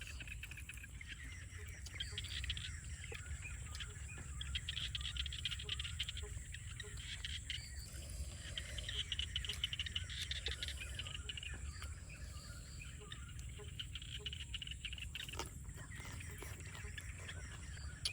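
Outdoor field ambience: a chorus of small calling animals, such as frogs and insects, that swells and fades several times over a steady low rumble.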